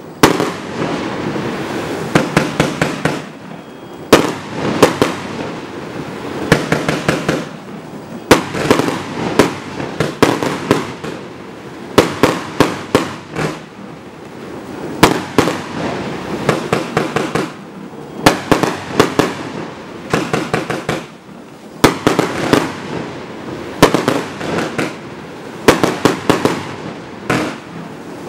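Willow Box compound firework (a multi-shot barrage cake) firing shot after shot: sharp launch and burst reports come in quick clusters of several a second, with short lulls between the clusters.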